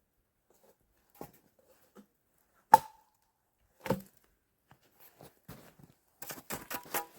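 Wood being struck or chopped: three spaced sharp knocks, the middle one loudest with a brief ring. Near the end comes a run of quick crackling and rustling, like branches or brush being handled.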